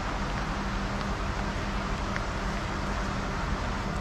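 An engine running steadily with a constant low hum, from heavy equipment working around the log.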